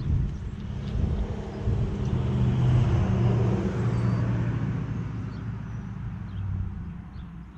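A motor vehicle's engine passing by: a low engine hum that grows louder over the first few seconds, then fades away.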